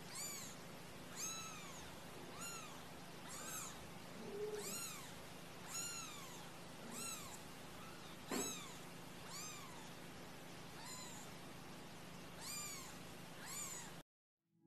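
Young kittens mewing faintly: short high-pitched calls that rise and fall, about one a second, with one brief sharp click a little after the middle.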